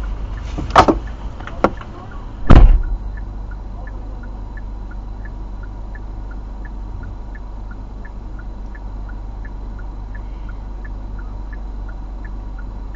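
Car hazard-light flasher ticking steadily inside the stopped car, an alternating higher and lower click a little over twice a second, over the engine's low idle hum. In the first three seconds come two sharp clicks and then one heavy thump.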